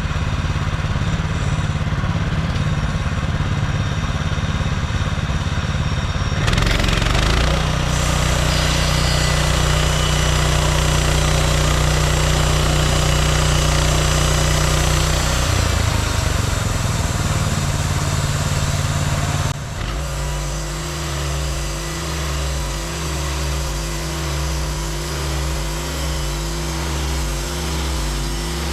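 Portable band sawmill's petrol engine running steadily. From about six seconds in a louder, denser noise joins it as the blade works through the log. About twenty seconds in the sound changes abruptly to a quieter engine note that rises and falls roughly once a second.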